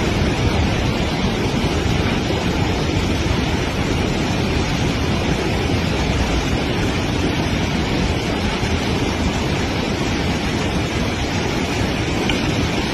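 Loud, steady rush of floodwater pouring through a broken dam flood gate.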